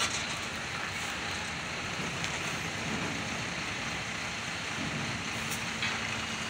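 Large ro-ro ferry's engines running steadily as it moves in to berth, heard as an even mechanical noise with a faint steady hum.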